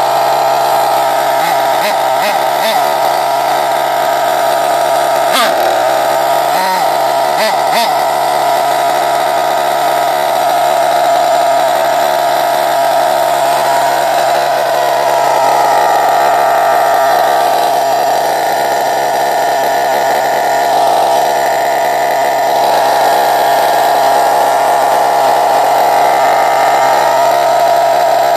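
Small nitro glow engine (R36) of a Hyper 7 RC buggy idling steadily while warming up, a high, buzzing whine like a small power tool. A few light knocks sound around six to eight seconds in.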